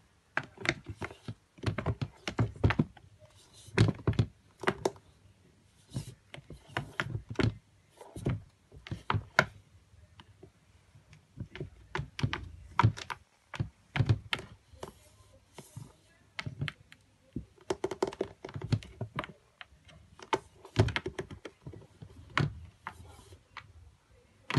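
Fingers and a kitten's paws tapping and scratching on a clear plastic storage drawer during play: irregular clusters of sharp clicks and light knocks, with brief pauses between bouts.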